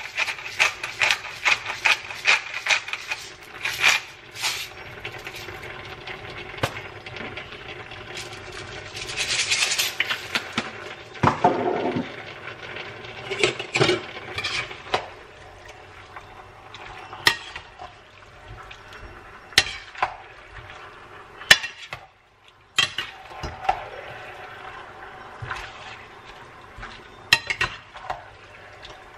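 Spatula stirring chunks of pork in a stainless steel frying pan, with scattered sharp clinks of the utensil against the pan. The first few seconds hold a quick run of even ticks, and a short rushing, liquid-like stretch comes about ten seconds in.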